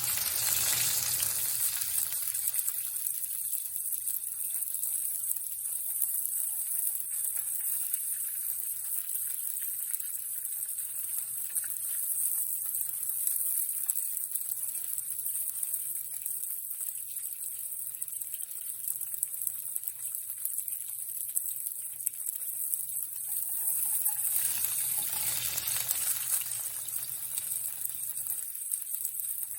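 Chicken thighs sizzling steadily in a frying pan, a constant high hiss that swells louder at the start and again about 25 seconds in.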